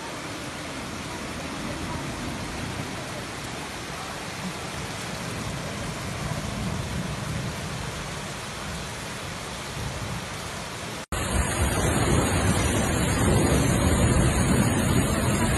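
Steady hiss of heavy rain and rushing floodwater. About 11 s in it gives way to a louder, rougher rush of rain and water with more low rumble.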